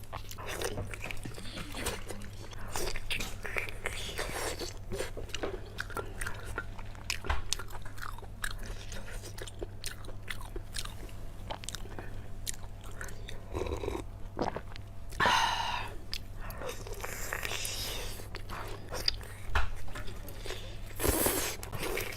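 Close-miked chewing and biting, with many small crunches and wet mouth clicks, and a couple of louder bursts around the middle and near the end. A steady low hum runs underneath.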